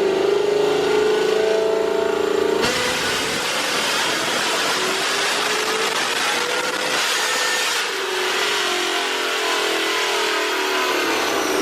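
Paxton-supercharged car's engine pulling under load on a chassis dyno, its pitch climbing slowly. About two and a half seconds in the sound changes abruptly to a hissier roar. Later the revs rise again and fall off, and a high whine winds down near the end.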